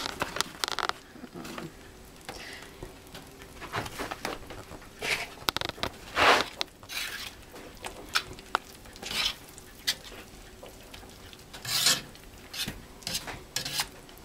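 Metal utensil stirring and scraping through thick hamburger gravy in a cast-iron skillet, in irregular strokes with occasional clinks against the pan.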